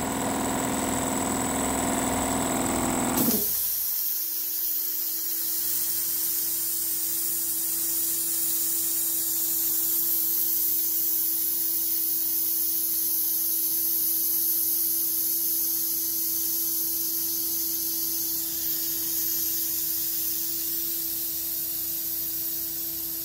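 Twin-cylinder air compressor pump running. The first three seconds are loud and dense, then about three seconds in the sound drops abruptly to a steady hum with a high hiss of air over it.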